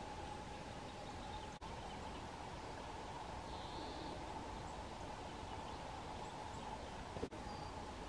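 Faint forest ambience: a steady low background with a faint steady hum, and one faint, short bird call a little before the middle.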